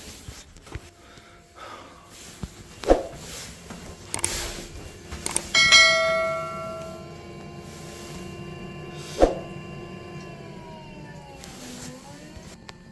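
A metal object struck once about halfway through, ringing like a bell and dying away over a few seconds, with a few sharp knocks of handling before and after.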